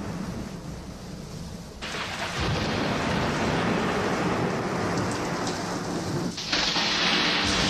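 Thunderstorm sound effect: steady rain with rumbling thunder. It swells sharply about two seconds in and again, louder, near the end.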